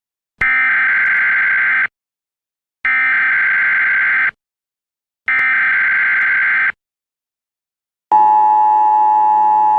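Emergency Alert System broadcast tones: three high bursts of data tone, each about a second and a half long, then, about eight seconds in, the steady two-tone attention signal.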